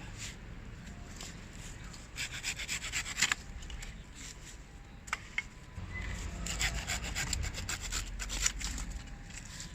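Wood being worked with a hand tool, probably a saw: two bursts of quick rasping strokes, one about two seconds in and a longer one past the middle.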